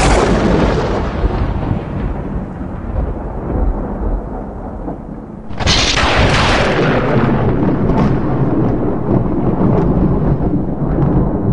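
Cinematic logo-reveal sound effect: a deep, noisy booming rumble that hits at once and slowly fades, then a second sudden boom about five and a half seconds in that rumbles on loudly.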